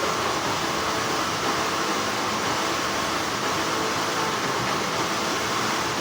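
Continuous hum of textile factory machinery: an even, unchanging rushing noise with faint steady tones running through it.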